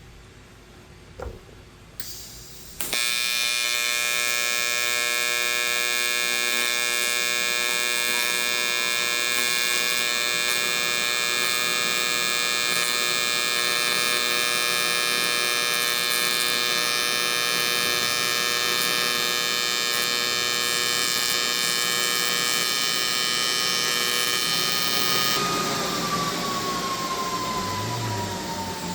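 AC TIG welding arc on aluminum: a steady, loud electrical buzz that starts about three seconds in after a click or two and runs for about 22 seconds while an inside-corner joint is welded downward. The buzz cuts off near the end as the arc is broken, leaving a softer hiss and a single falling tone.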